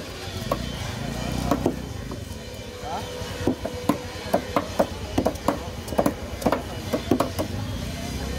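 Heavy knife blades chopping against wooden cutting boards: a run of sharp, irregular knocks, coming several a second in the second half.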